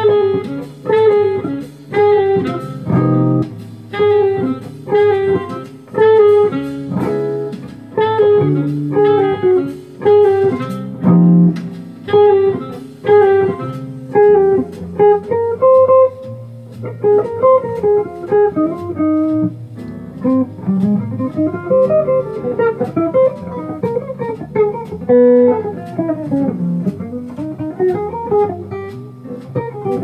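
Hollow-body electric archtop guitar playing jazz. Repeated struck chords in a steady rhythm give way, about halfway through, to single-note lines winding up and down.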